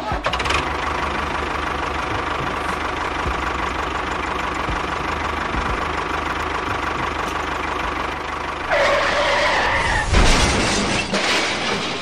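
An engine running steadily with a fast knocking beat. About three-quarters of the way through it grows louder and a higher wavering tone comes in over it.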